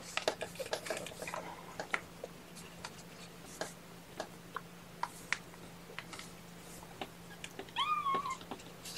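A young kitten mews once near the end, a short call that rises and then falls in pitch, among scattered soft clicks and rustles of handling over a faint steady hum.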